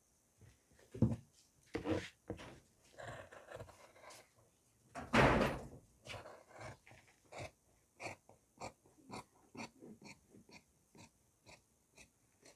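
Large tailor's shears cutting through coat cloth along a chalk line: a steady run of short snips, about two a second, in the second half. Before that, handling of the cloth and shears, with one louder rustle about five seconds in.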